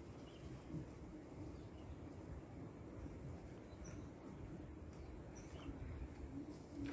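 A steady high-pitched insect buzz over a low background rumble.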